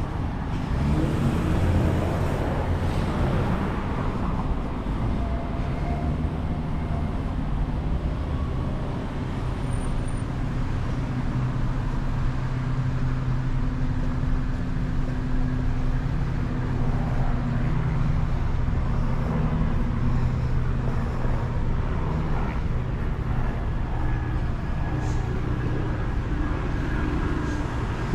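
Road traffic: cars driving past on a busy city street, with a steady low engine hum through the middle stretch.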